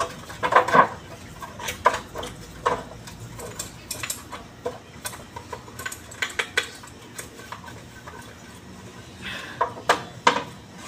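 Irregular metal clinks and knocks from the parts of a forklift starter motor as they are handled and fitted by hand, with a cluster of knocks in the first second and another shortly before the end.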